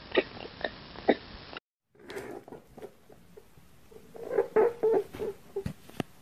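A ring-tailed lemur's quick run of short clicking calls, cut off about a second and a half in. After a brief silence comes a string of soft, short, low sounds and clicks from a white lop-eared rabbit grooming its face, busiest just past the middle.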